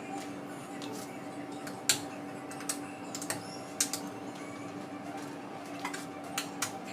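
Ceiling fan regulator switch clicking irregularly, about eight sharp clicks in all and most of them in the second half, over a steady electrical hum.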